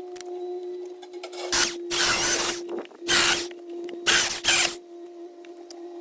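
A steady low hum with five short, loud bursts of hissing noise in its middle part, and faint clicks throughout.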